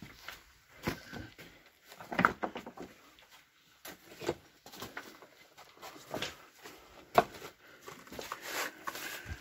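Footsteps crunching and scraping over loose rock rubble, uneven, one step every second or two, with a sharper knock about two seconds in and another about seven seconds in.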